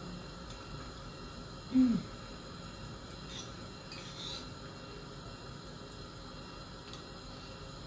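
Eating from a bowl with a spoon: a short, falling "mm" of enjoyment about two seconds in, the loudest sound. A few faint clicks of the spoon against the bowl follow.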